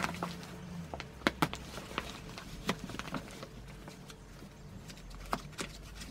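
Hands handling the fabric rim of a spring-loaded pop-up grow bag: scattered rustles and sharp clicks at an uneven pace, with two louder clicks about a second in and another near the end.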